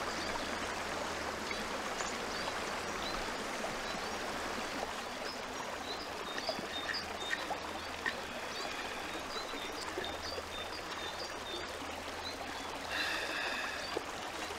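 A river or stream flowing steadily, with small birds chirping repeatedly over it and a short call near the end.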